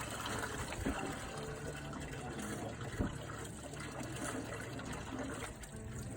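Running water splashing steadily as fish fillets are rinsed, with a couple of light knocks.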